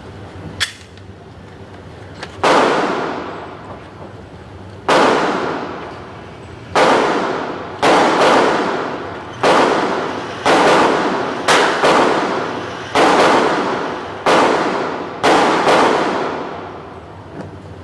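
Gunshots at a shooting range: more than a dozen loud shots at irregular spacing, some in quick pairs, each followed by a long echoing decay. A small sharp click comes about half a second in, before the first shot.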